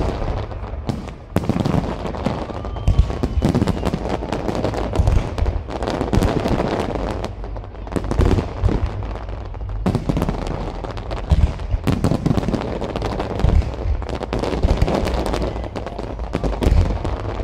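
Fireworks display: aerial shells bursting overhead in a dense, unbroken barrage of bangs and crackling, with a deep rumbling low end.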